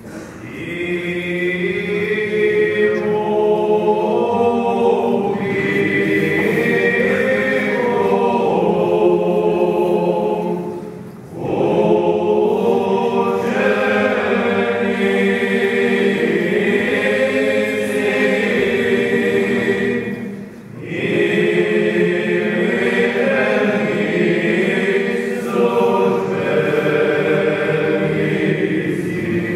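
Choir singing a liturgical chant in three long phrases, with short breaks about eleven and twenty-one seconds in.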